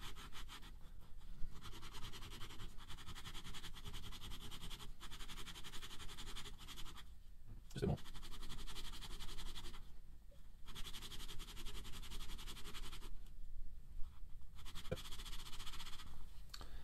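Hardened polymer clay worm master rubbed back and forth on 100-grit sandpaper: a rasping scrape in quick strokes, with a few brief pauses. It is sanding a flat spot onto the back of the worm.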